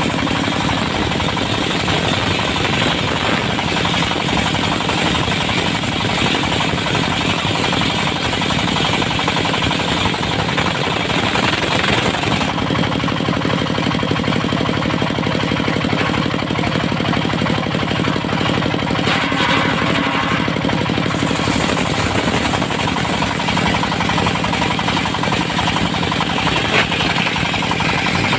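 Engine-driven circular sawmill running steadily, its blade sawing tough dry teak. A high hiss thins out about twelve seconds in and comes back about twenty-one seconds in.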